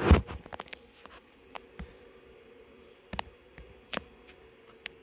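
Handling noise: a sharp knock at the start, then a few light scattered clicks and taps, over a faint steady hum.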